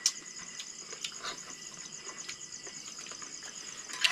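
Night insects trilling steadily in a fast, even pulse, with a few sharp clicks and cracks from hands working at crab shells and dishes on a wooden table, the loudest right at the start and just before the end.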